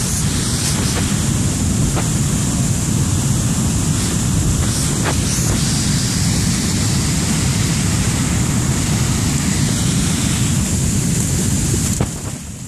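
Water pouring over a dam spillway and churning in the pool below: a loud, steady rushing, with wind on the microphone. The level drops briefly near the end.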